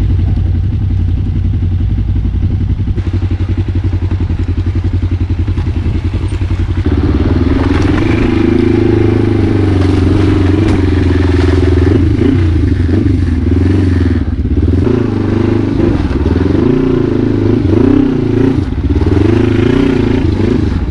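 Motorcycle engine running steadily at low revs; about seven seconds in it gets louder and its revs rise and fall unevenly as the bike is ridden, with a few light clatters.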